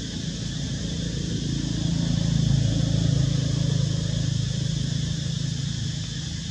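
Engine hum of a passing motor vehicle, growing louder about two seconds in and fading toward the end, over a steady high hiss.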